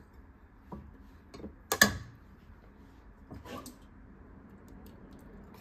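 A metal spoon knocks against a stainless steel saucepan a few times as cubed cassava is spooned in. The loudest knock comes about two seconds in and rings briefly.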